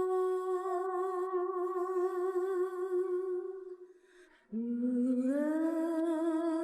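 A woman's voice singing unaccompanied, a cappella: a long held note with vibrato that fades out, a short breath, then a new phrase that starts low and slides up.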